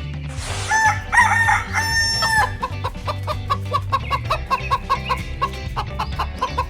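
A rooster crows once, about a second in, followed by a hen clucking in a quick, steady run of short clucks.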